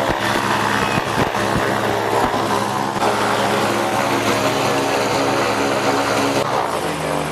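The engine and propeller of a large radio-controlled model biplane running steadily at a constant pitch. The tone shifts and the hiss drops away near the end.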